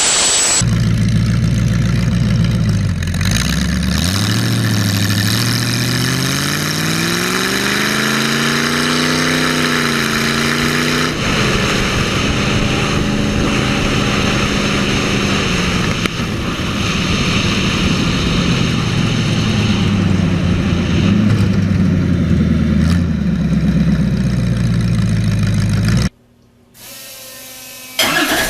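An engine running: its pitch dips, then climbs steadily as it is revved for several seconds and drops back about eleven seconds in, settling to a steady idle. It cuts off suddenly near the end.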